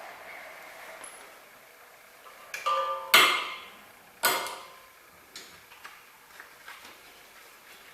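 Metal clanks from tools and parts: a short ringing clink, then two sharp metallic knocks a little over a second apart, each ringing briefly, followed by a few light ticks.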